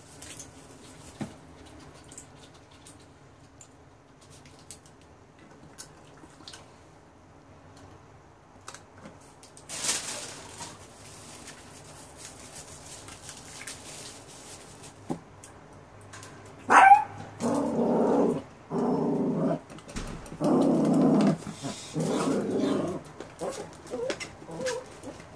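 A small dog vocalizing: a sharp rising yelp, then a string of drawn-out whines and growls, each about a second long, in the second half. Earlier there are only faint clicks and a brief rustle.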